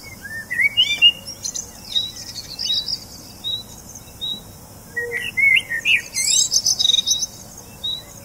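Small songbirds singing: quick rising chirps and whistled phrases, with one short high note repeated about every three quarters of a second and a busier flurry of song about five seconds in.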